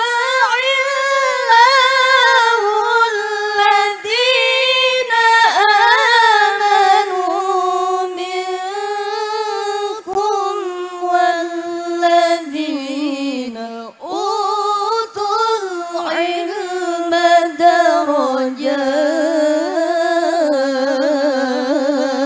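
Female voice chanting the Quran in melodic qiroah style over a microphone: long drawn-out phrases with ornamented turns and only brief pauses, the pitch slowly sinking lower across the passage.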